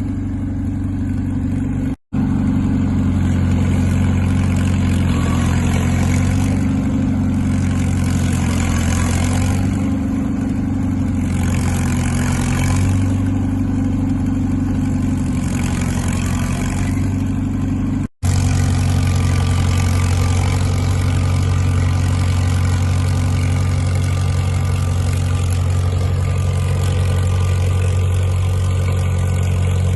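Crawler dozer's diesel engine running steadily while pulling a trail drag, a low, even drone. The sound drops out for an instant about two seconds in and again about eighteen seconds in.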